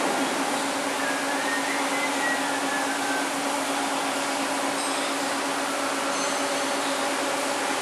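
Steady mechanical hum of running machinery: an even hiss with a constant drone through it, holding unchanged throughout.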